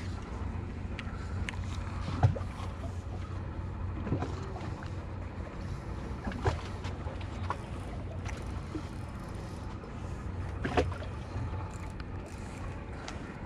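Steady low drone of a nearby ferry's engines running, with a few short sharp knocks scattered through, the loudest about two seconds in.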